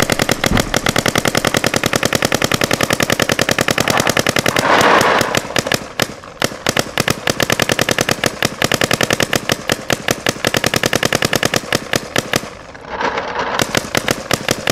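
Electronic paintball marker firing in rapid, evenly spaced shots, many per second, on continuous full-rate shooting. About five seconds in, and again near the end, the shots are briefly covered by a rush of rattling noise.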